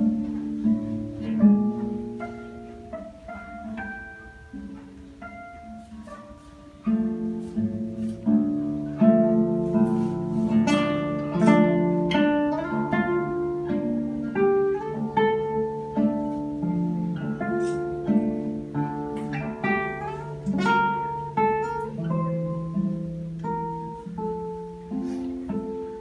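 Solo classical guitar played fingerstyle: plucked melody notes over a moving bass line. It is soft for the first several seconds, then louder and fuller from about seven seconds in.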